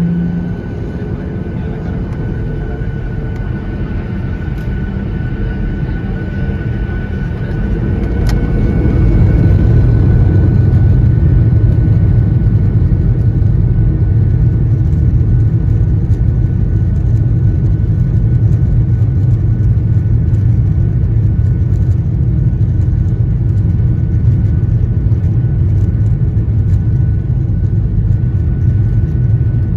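Jet airliner engines heard from inside the cabin: a whine rising over the first several seconds as they spool up, then a louder, steady rumble from about ten seconds in, the takeoff run at full thrust.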